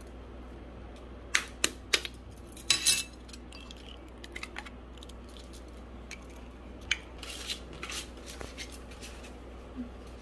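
Eggs being cracked on a bowl and added to milk for pancake batter. There are three sharp taps about a second and a half in and a louder cluster of clinks just after, then scattered lighter clinks of utensils against dishes.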